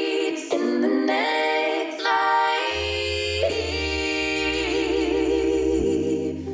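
Background music: a sung vocal melody, joined by a steady deep bass about three seconds in.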